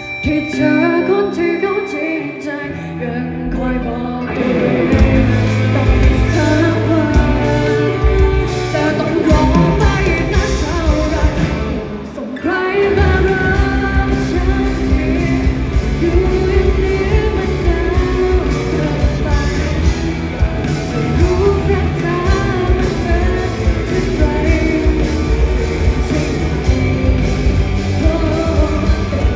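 Live rock band playing a song with a singer. The opening is sparse, the full band with drums comes in about four seconds in, and there is a short break about twelve seconds in before the band carries on.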